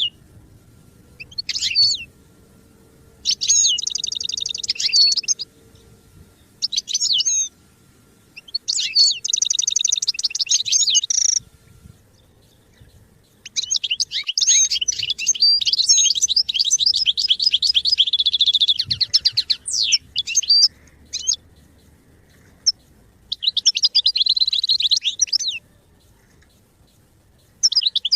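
European goldfinch singing: fast, tinkling twitters and trills in phrases of one to six seconds with short pauses between them. The longest phrase comes about halfway through.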